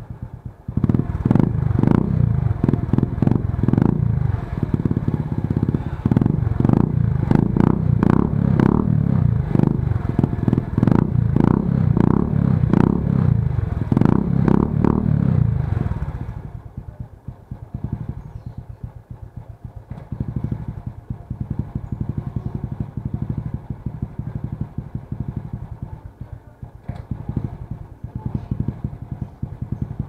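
Suzuki Smash's single-cylinder four-stroke engine, breathing through an Exos R5i aftermarket exhaust that the owner calls a silent pipe, revved and held at high revs for about fifteen seconds. It then drops back to idle, with a couple of short throttle blips near the end.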